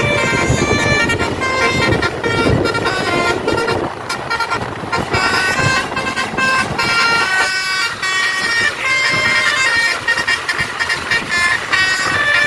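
Bus 'telolet basuri' musical air horn playing a tune in quick short notes, with bus engine noise underneath.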